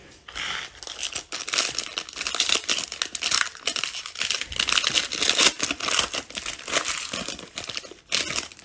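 Foil wrapper of a Panini Mosaic No Huddle football card pack crinkling and tearing as it is pulled open by hand, a dense crackle that lasts almost the whole time.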